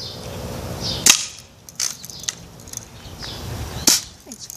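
BB gun firing twice at a plastic bottle, about three seconds apart, each shot a sharp crack; the first is the louder.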